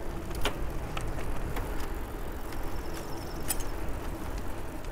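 Bicycle rolling along a paved road, with wind rumbling on the microphone over steady tyre and drivetrain noise, and a few short sharp clicks.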